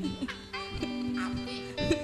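A live band playing a quiet instrumental passage: a few soft held tones and scattered plucked guitar notes, without drums.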